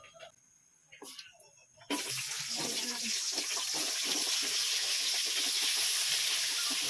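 Sliced carrots hitting hot cooking oil in a wok, starting a sudden, loud, steady sizzle about two seconds in. Before that there are only a few faint knocks.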